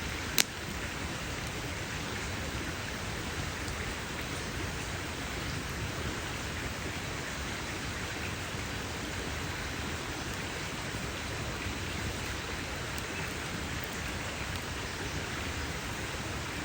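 Campfire burning with a steady crackling hiss, and one loud sharp pop about half a second in.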